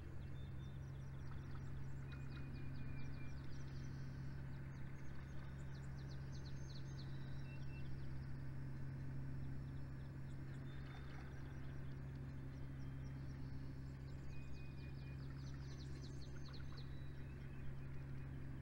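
Several small birds singing in rapid trilled phrases and short high whistles, over a steady low hum.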